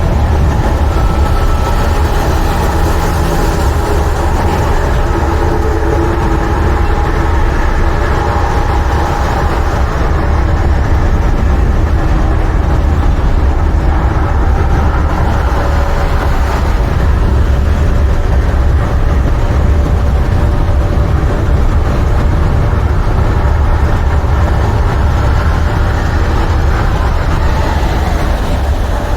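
International semi-truck's MaxxForce 13 diesel engine running steadily, a constant low rumble with a few steady tones above it.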